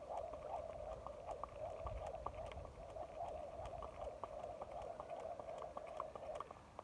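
Jump rope skipping: the rope whirring round and slapping the pavement in a steady rhythm of about two turns a second, with small clicks from the rope and feet, stopping shortly before the end.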